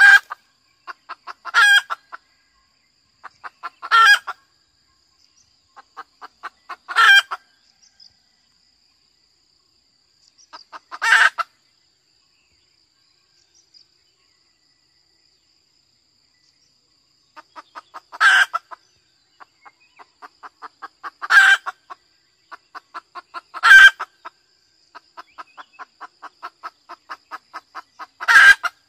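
Junglefowl hen giving her mating-solicitation call (ngekek): runs of quick soft clucks, each building to a loud cackle, about nine times, with a pause of several seconds in the middle.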